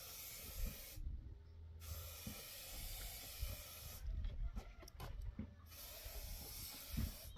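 Spray paint hissing from a can in three bursts, each one to two seconds long, with light handling knocks in the gaps.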